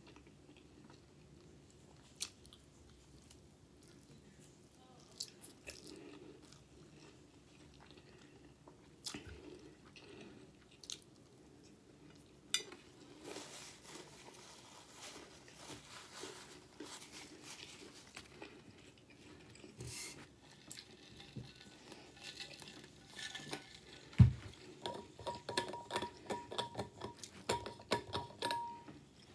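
Close-up chewing of garlic pasta and baked chicken, with scattered light clicks of a fork on a plate. A single thump about three-quarters of the way through, then a run of quick clicks with a faint steady tone near the end as the lid of a water bottle is opened.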